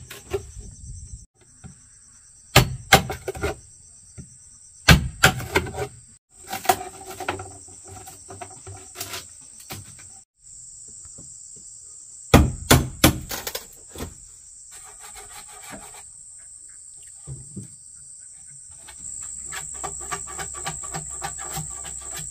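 Clusters of sharp knocks from hand tools striking wood or bamboo, a few strikes at a time, with a quicker run of lighter taps near the end. A steady, high-pitched insect chorus drones behind them, cutting out briefly a few times.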